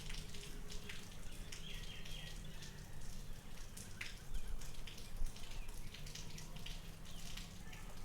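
Irregular soft clicks and crackles of fingernails working through hair, picking and popping lice and nits, over a steady low hum.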